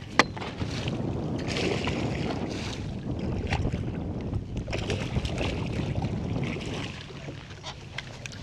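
Wind buffeting the microphone over the splashing of a hooked bass thrashing at the surface beside the boat as it is scooped into a landing net. A sharp click just after the start.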